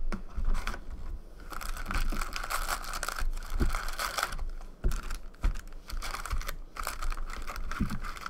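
Foil trading-card packs being pulled out of a cardboard hobby box and set down on a table: wrappers crinkling and rustling, with a few soft knocks.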